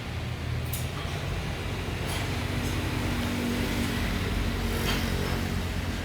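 Steady low mechanical rumble of running machinery, with a couple of sharp clicks and a steady hum in the middle.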